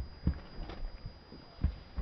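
Hooves of a cantering horse striking grass: a few irregular, dull low thuds.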